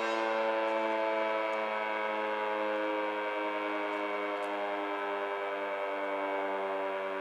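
Federal Signal 2T22 three-phase dual-tone outdoor warning siren sounding a steady Alert tone, a chord of two pitches that sags slightly over the seconds. Its top intake is completely blocked.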